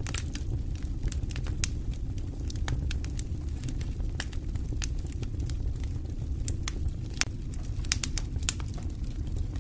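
Wood fire burning in a stone fireplace, a steady low rumble of the flames with frequent sharp crackles and pops at irregular intervals, a few louder pops between seven and nine seconds in.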